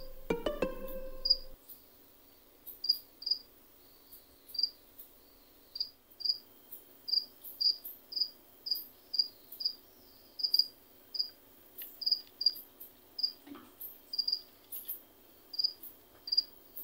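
An insect chirping: short, high chirps, singly or in pairs, repeated irregularly about twice a second, starting about a second and a half in.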